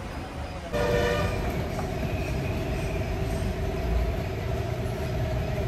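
A steady machine drone: a held, pitched whine over a low rumble, starting abruptly about a second in.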